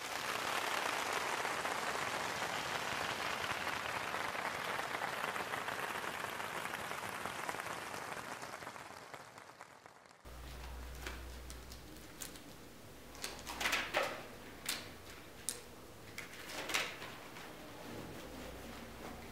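Audience applause that slowly dies away over about ten seconds. Then a quiet stretch with a low hum and a few scattered short knocks and clicks.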